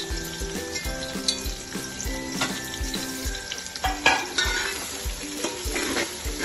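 Sliced onions frying in hot oil in an aluminium pot, with a steady sizzle; from about four seconds in, a spatula stirs and scrapes the onions against the pot. Background music with a steady beat plays underneath.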